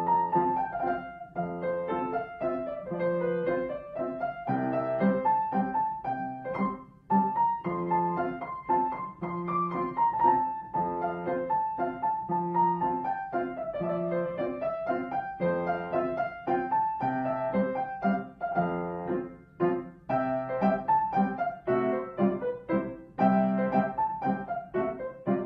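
Instrumental background music led by piano, a melody rising and falling over steadily struck notes.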